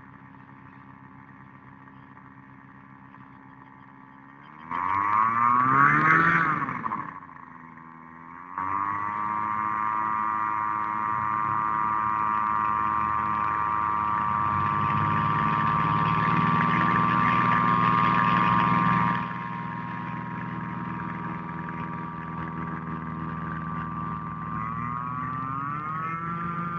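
Small single-engine propeller plane's engine running: a low drone that surges loudly about five seconds in with the pitch rising and falling, dips, then runs loud and steady at high power until it drops off suddenly a little past halfway. Near the end the pitch swells up and down once more.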